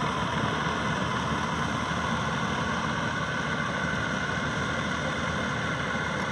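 Maxxi Bimo 102 Top combine harvester running steadily, an even mechanical drone that holds the same pitch and level throughout.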